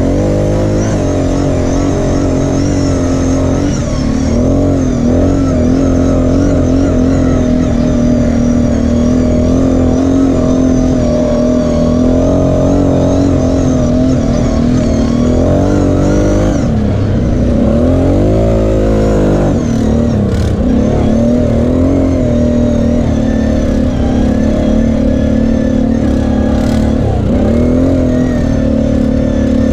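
Kawasaki KFX 700 V-Force quad's V-twin engine running under throttle, heard from the rider's seat. The pitch wavers as the throttle opens and closes, with a longer rise and fall in revs a little past halfway.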